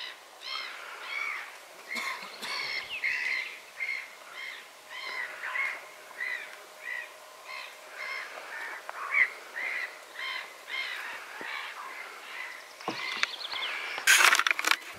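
Wild birds calling over and over, short arched calls at a rate of about two or three a second. Near the end comes a brief burst of rustling noise.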